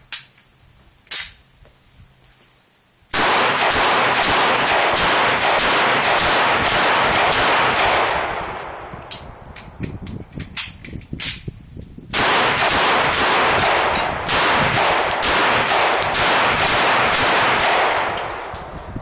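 Gunfire: a couple of single sharp cracks, then two long strings of rapid shots, several a second, the first thinning out partway through and the second starting about twelve seconds in.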